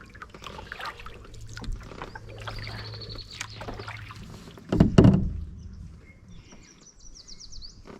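Canoe being paddled: irregular paddle splashes and small knocks against the hull, with one loud thump about five seconds in.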